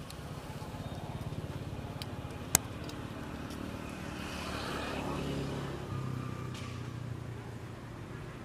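A steady low engine rumble with a fine regular pulse, with one sharp click about two and a half seconds in.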